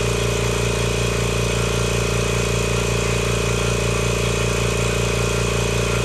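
Kobalt 26-gallon electric air compressor running steadily under load, pumping up its tank while drawing about 1340 watts.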